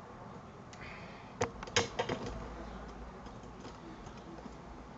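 A few sharp handling clicks and knocks close together about a second and a half in, over a low steady room noise.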